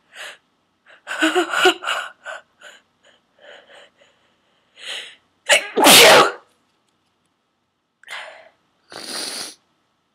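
A person's sneeze building up as a run of short, hitching gasps, then one loud, forceful sneeze about six seconds in. Two short breaths follow.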